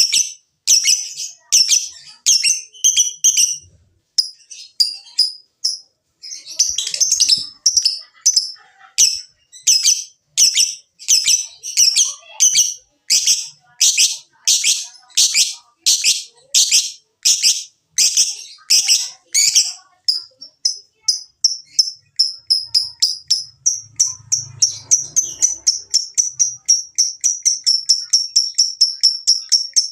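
Lovebird calling with loud, sharp, high chirps, repeated roughly twice a second; about twenty seconds in it breaks into a fast, continuous chattering trill of several notes a second, the long 'ngekek' call.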